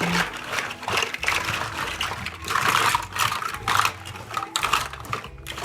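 Many hard plastic toys clattering and rattling against each other inside a large fabric wash bag as it is pushed into a washing machine drum, a dense run of clicks that thins out near the end.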